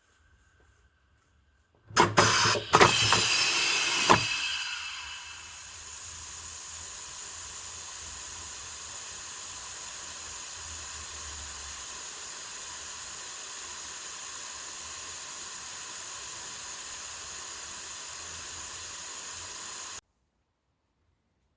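A few sharp clacks, then compressed air hissing steadily, the hiss easing off a little at first before holding even, and cutting off suddenly near the end.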